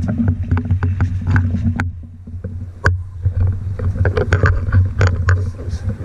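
Small dive boat's outboard motor idling with a steady low hum, over scattered knocks and clatter aboard; the hum drops for a moment about two seconds in.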